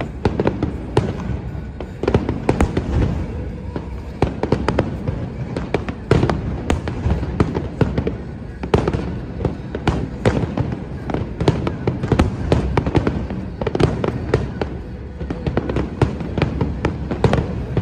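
Fireworks display: aerial shells bursting in a dense, rapid barrage of bangs and crackling, several reports a second, over a continuous low rumble.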